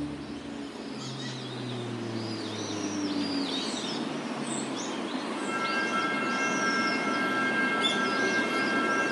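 Small birds chirping over a steady outdoor rumble, while faint music dies away in the first few seconds. About halfway through, a passing train's cluster of steady high-pitched tones starts and holds.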